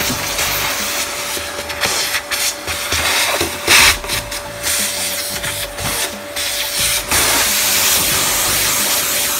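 Canister vacuum cleaner running with a steady motor whine as its nozzle is pushed across a wooden floor, with a brief louder surge a little under four seconds in.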